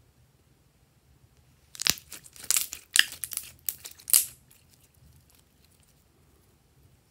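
Glossy slime squeezed and kneaded in the hands, giving a quick run of wet crackles and pops from about two seconds in until about four seconds in.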